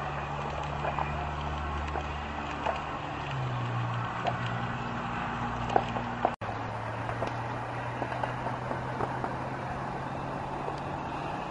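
Steady low rumble of traffic on the road bridge overhead, with engine drone that shifts in pitch. About six seconds in the sound breaks off for an instant and gives way to a steadier low hum of outdoor background with scattered light ticks.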